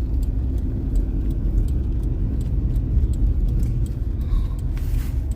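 Steady low road rumble inside a moving car's cabin on snowy, icy roads, with faint light ticks repeating every few tenths of a second.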